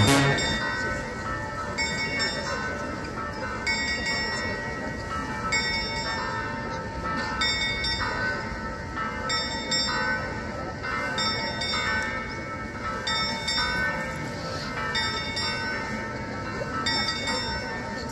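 Bell of the Prague Astronomical Clock being struck over and over, about once every two seconds, each stroke ringing on briefly, as the clock's apostle procession plays out.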